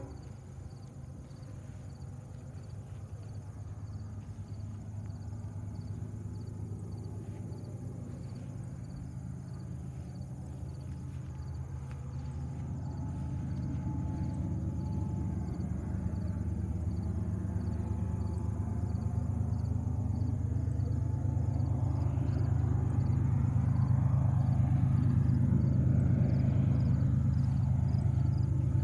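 Low rumble of an approaching freight train's GE diesel locomotives, growing steadily louder, with insects chirping steadily over it.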